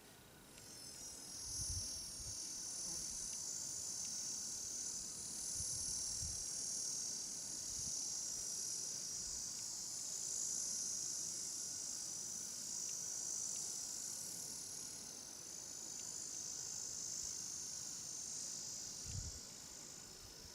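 An insect's high-pitched buzzing song that swells up over the first couple of seconds, holds steady, and fades away near the end.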